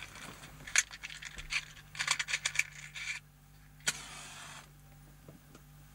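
Small clicks and rattles of things handled inside a car, then a sharp strike about four seconds in followed by a short hiss: a cigarette being lit.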